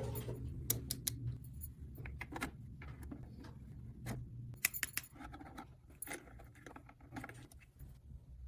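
Irregular clicking, tapping and rattling of small hard objects being handled, over a low steady hum.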